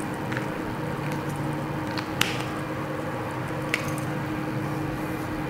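Whiteboard markers being handled, giving four sharp light clicks, the loudest about two seconds in, over a steady low hum in the room.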